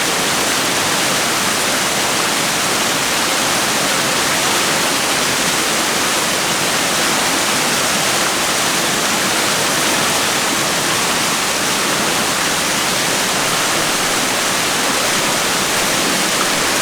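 Waterfall rushing steadily: an unbroken, even hiss of falling water with no pauses or changes.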